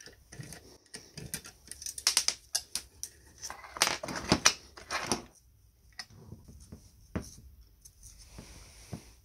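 Irregular metallic clicks, clinks and short scrapes of hand tools and small steel parts against the cast-iron body of an old Tutti Frutti fruit press as it is taken apart. The clicks are busiest in the first half and thin out to a few isolated taps.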